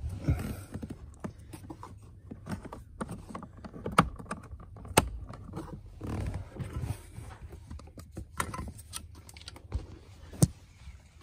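Hard plastic clicks and knocks with rustling, as a footwell courtesy-light housing with an LED bulb is handled and pressed into the car's interior trim. Several sharp clicks stand out, the loudest about four, five and ten seconds in.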